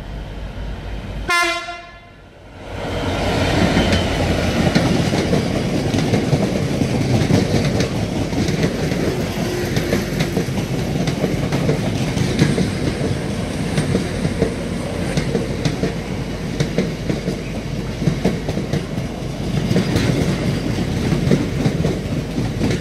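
A diesel-hauled freight train sounds one short horn note about a second in. Then its long rake of bulk cement tank wagons runs past close by, loud and steady, the wheels clattering on the rails.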